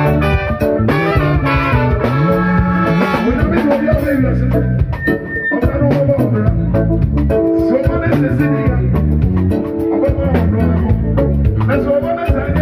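Live band playing upbeat music: trumpet, trombone and alto saxophone over drum kit and keyboard. The horns drop out about four seconds in and the rhythm section carries on.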